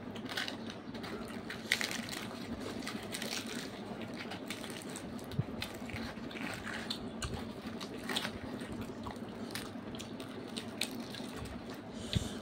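Close-up eating sounds: chewing and wet mouth noises with crisp crackles as fried puris are torn by hand, over a steady low hum.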